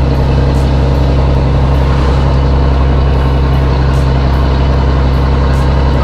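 Loaded Volvo EDC truck's diesel engine running loud and steady while the truck drives along, heard from the cab.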